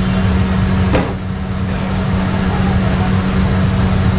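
Steady loud hum and rumble of kitchen equipment, carrying a constant low tone, with a single sharp click about a second in.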